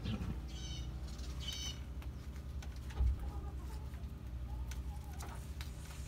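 Brown laying hens in a wood-shavings coop making soft, low clucking calls, with two short high chirps in the first two seconds. A dull thump about three seconds in.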